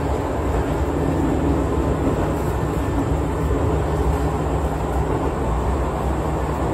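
Izuhakone Railway Daiyuzan Line electric train running between stations, heard from inside the carriage: a steady noise of wheels on the track and running gear, heaviest in the low end.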